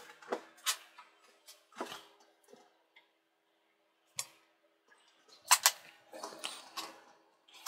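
Faint, scattered clicks and taps of a thin metal pick and fingertips on a laptop's plastic lid as a small sticker is positioned, with two sharper clicks about five and a half seconds in and a soft rubbing as the sticker is pressed down near the end.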